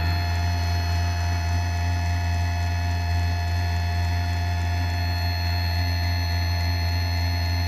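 Diesel furnace running after ignition: a steady low hum with several faint, steady higher tones above it, unchanging throughout.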